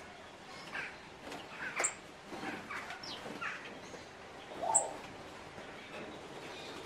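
Captive birds chirping: a scatter of short calls, some sliding up or down in pitch, with a sharper, louder sound about two-thirds of the way through.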